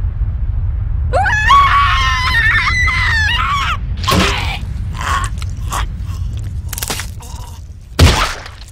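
Cartoon skunk character screaming in a high, wavering wail for about two and a half seconds over a steady low rumble. A few short knocks follow, then a loud splattering crash near the end.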